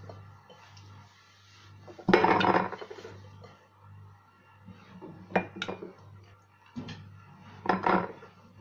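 Boiled lemons being put by hand into glass jars, knocking and clinking against the glass in several short clusters, the loudest about two seconds in. A faint steady low hum runs underneath.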